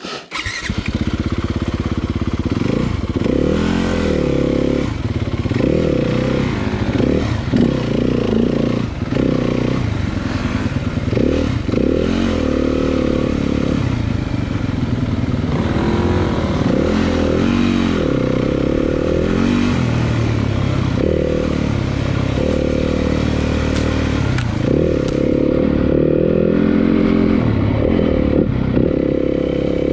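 Dirt bike engine running and being ridden, its pitch rising and falling over and over as the throttle is opened and closed. It comes in suddenly at the very start.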